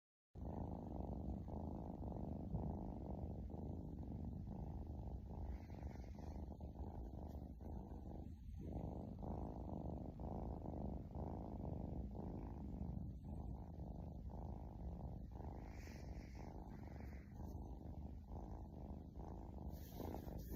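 Kitten purring as a steady low rumble that dips briefly at regular intervals, a little more than once a second.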